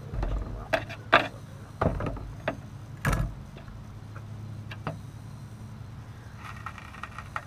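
Hand tools being handled and set down on a 1997 Toyota Camry's sheet-metal trunk lid: a handful of knocks and clunks in the first three seconds or so, then quieter handling.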